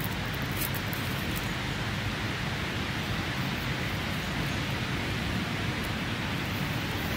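Steady outdoor background noise: an even hiss over a low rumble, with no distinct calls or events.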